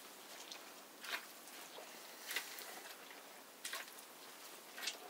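Dark grapes crushed by hand in a plastic basin to make wine must: faint wet squelches, four in all, about one every second and a quarter.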